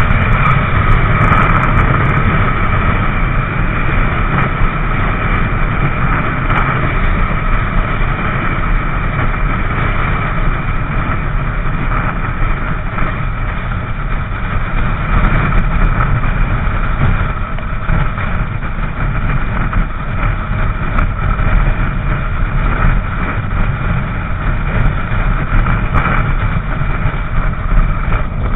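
Motorcycle riding at freeway speed: a loud, steady rumble of wind on the microphone over engine and road noise, with no change in speed.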